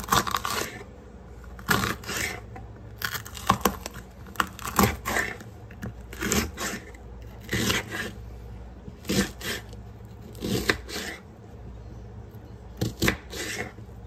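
Knife slicing through a green bell pepper on a cutting board: short crisp crunching cuts with the blade knocking the board, about ten of them spaced a second or two apart.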